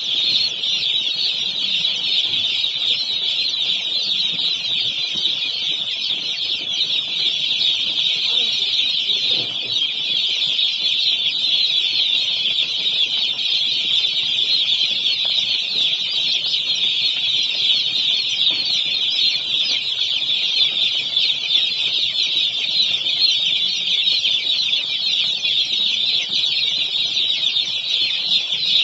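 A dense, steady chorus of high-pitched peeping from a large flock of about a thousand day-old broiler chicks.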